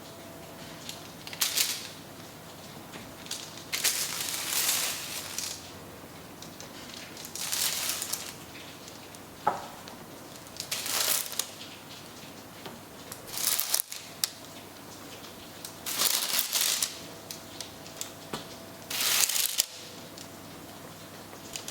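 Irregular crunching and scraping strokes of food being worked by hand in a kitchen, about ten of them, each lasting under a second.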